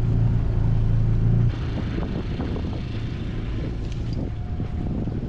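A steady low motor hum for about a second and a half, then a cut to wind buffeting the microphone over water noise on a moving sailboat.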